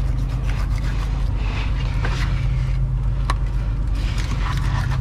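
Boat's outboard motors idling in a steady low hum. Over it come scattered scrapes and clicks of a yellowfin tuna being shifted on crushed ice in a fish box, with one sharp click about three seconds in.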